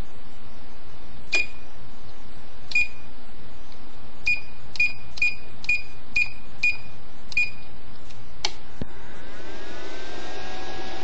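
Astro Products automatic battery charger beeping at each button press: about ten short, high beeps as the charge rate and display are set. About nine seconds in, a whirring starts whose tones rise and then hold steady, the charger's cooling fan spinning up as it begins to run. A steady hum sits underneath throughout.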